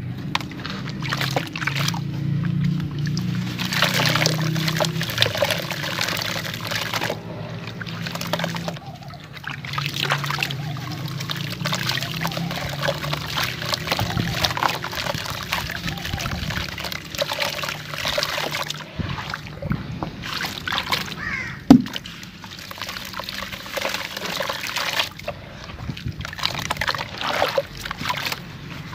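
Hands crumbling gritty sand-clay lumps into a bucket of water: grit pouring and pattering into the water, wet sloshing and squelching as the soaked pieces are mashed. There is a single sharp knock about 22 seconds in.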